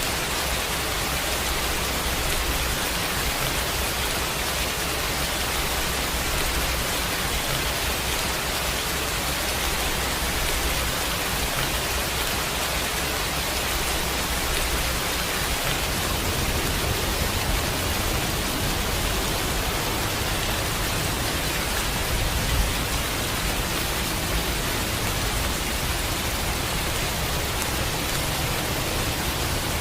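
Steady rain, a constant even hiss with no breaks or pattern.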